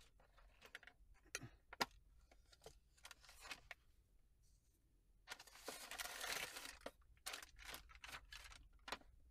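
Faint handling noises of a caliper and its hard case: scattered clicks and taps, with a longer scraping rustle about five to seven seconds in.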